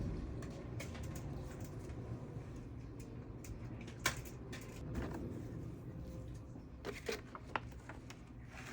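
A keyboard and its packaging being handled during unboxing: scattered rustles and clicks, the sharpest about four seconds in and a few more near the seven-second mark, over a steady low rumble.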